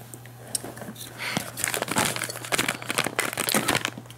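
Plastic pouch of Lotte yogurt jellies crinkling as it is handled and shaken to tip the gummies out into a hand. The crinkling is sparse at first and thickens from about a second in.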